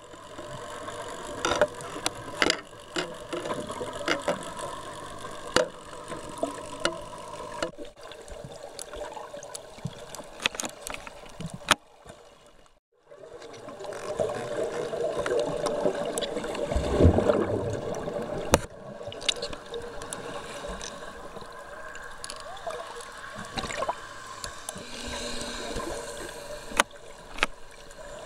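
Underwater sound picked up through a Canon G11's waterproof housing: water swishing and gurgling, scattered sharp clicks and a steady low hum. The sound cuts out briefly about halfway through, then a louder rush of water follows.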